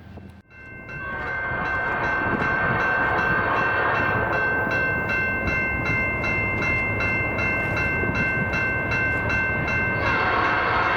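Canadian National freight locomotive's air horn sounding one long multi-note chord for about nine seconds over the rumble of the passing train. The horn cuts off about a second before the end while the train noise carries on.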